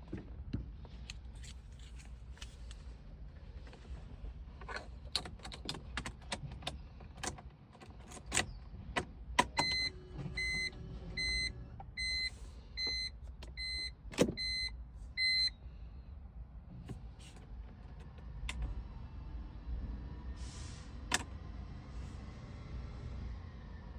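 Inside a 2002 BMW E46 M3 with SMG gearbox that will not crank: a run of sharp clicks from the switches and controls, then an electronic warning chime beeping about eight times, roughly one and a half beeps a second, and a few more clicks. No engine starts.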